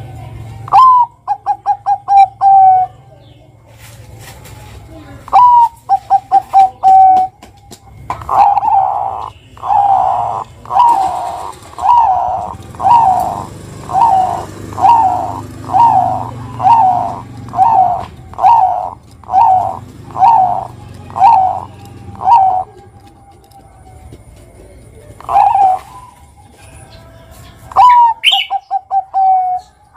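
Zebra dove (perkutut) cooing. Three short phrases each open with a rising note and break into a fast run of clipped coos: about a second in, at about five seconds and near the end. In the middle comes a long, even string of about eighteen coos, somewhat more than one a second.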